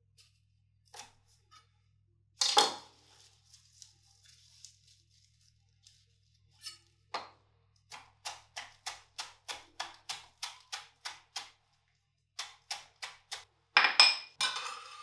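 Chef's knife chopping parsley on an end-grain wooden cutting board: a steady run of short knocks, about three a second, with a couple of louder knocks near the start and near the end.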